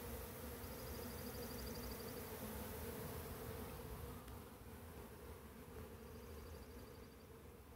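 Honey bees buzzing in numbers at a hive entrance, a steady hum that grows fainter about four seconds in.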